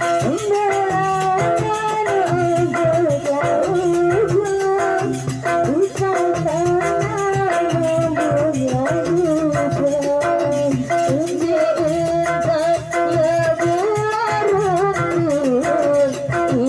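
A woman singing a melody into a microphone over a live rudat ensemble's accompaniment, heard through the PA.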